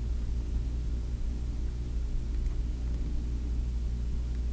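Steady low hum with a faint buzz of overtones, unchanging throughout: the background room tone of a small TV studio.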